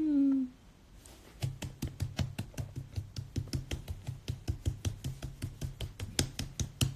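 A woman's drawn-out, falling 'ooh', then, from about a second and a half in, steady hand clapping at about five claps a second.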